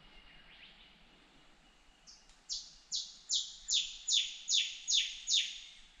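Rufous scrub-bird singing: a run of about nine loud, sharp notes, each sweeping quickly down in pitch, at roughly two and a half a second. The run starts about two seconds in and grows louder after the first note.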